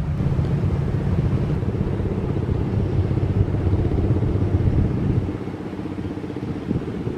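Jet airliner engines heard from a distance: a low, steady rumble that drops in level about five seconds in.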